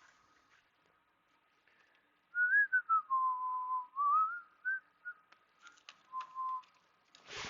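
A person whistling a few short phrases, the notes sliding up and down. A faint steady high tone runs underneath, and there is a click near the end.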